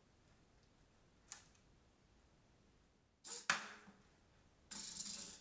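Motorised 3D-printed walk-the-plank mouse trap cycling its tipping platform as it drops a mouse and resets: a faint click about a second in, a sharper clack about three and a half seconds in, and a short mechanical burst of about half a second near the end.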